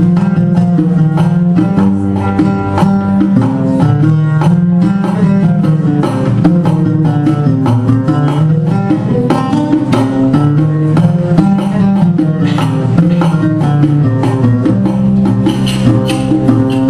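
Oud playing a melody in maqam Nahawand, accompanied by a riqq (Arabic tambourine) beating a maqsoum rhythm with jingle accents.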